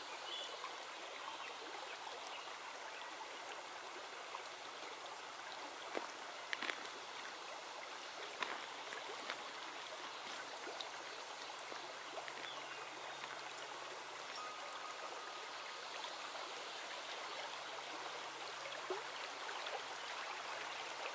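Small stream running steadily, a soft even rush of water, with a few faint ticks about six to eight seconds in.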